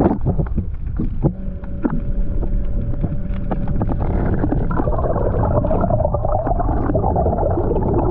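Watersnake 12-volt, 24 lb-thrust electric trolling motor running, heard through an underwater camera: a low water rumble with a steady whine, which gives way about halfway through to a louder, rougher churn. A few knocks in the first two seconds.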